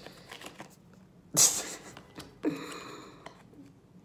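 A short, sharp breath of laughter through the nose about a second and a half in, then a softer voiced breath about a second later, with faint rustling of a handled card pack between.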